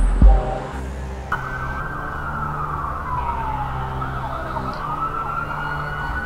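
A siren wailing, starting suddenly about a second in, its pitch sliding slowly down and then back up. A beat of music ends in the first second, and a faint low hum runs under the siren.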